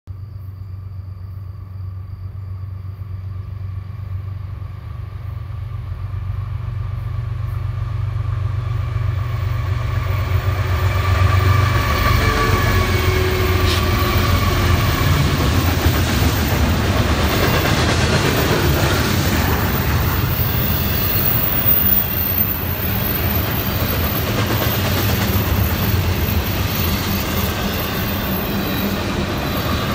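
Florida East Coast Railway freight train approaching: the low drone of its GE ES44C4 diesel locomotives grows steadily louder until they pass about halfway through. Then comes the continuous rumble and clickety-clack of double-stack intermodal cars rolling by.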